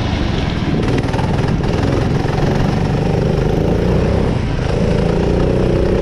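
Onboard sound of a minikart's Honda four-stroke engine running. Its revs drop as the kart slows through a corner and pick up again near the end as it accelerates out.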